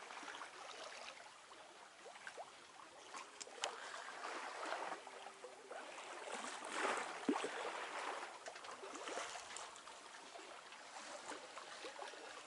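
Faint water swishing and trickling along a sailboat's hull under sail, swelling and easing in irregular soft washes, with a few light ticks.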